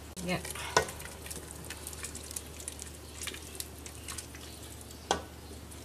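A spoon stirring thick curry in a metal pot, with soft wet sloshing and small scrapes and ticks against the pot; a sharper clink comes about a second in and another near the end. A low steady hum runs underneath.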